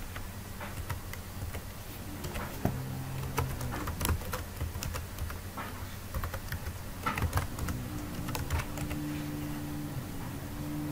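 Typing on a computer keyboard: a run of short, irregular key clicks.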